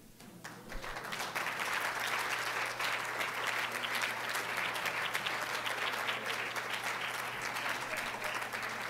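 Conference audience applauding, the clapping building up over the first second and then holding steady.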